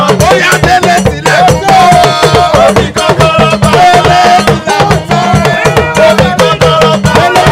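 A group of men singing a lively song together, accompanied by hand drums including a Yoruba talking drum, with steady, fast drum strokes throughout.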